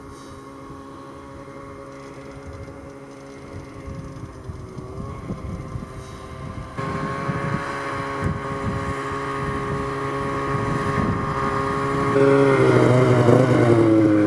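Snowmobile engine running at a steady pitch, growing louder as it approaches. Near the end its pitch falls as it slows to a stop.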